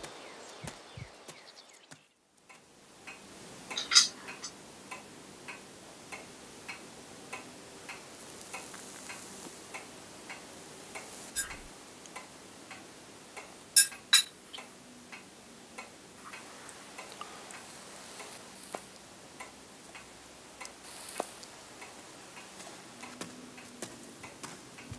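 A clock ticking steadily in a quiet room, with a few louder, sharper clicks about four seconds in and twice in quick succession near the middle.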